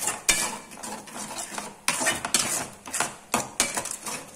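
A spatula stirring and scraping a thick beetroot-and-curd mixture around a metal kadai, in a string of irregular scraping strokes.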